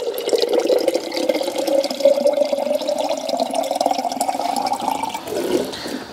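Tap water running into a glass jar of old painting oil, the tone rising steadily as the jar fills; the flow stops about five seconds in.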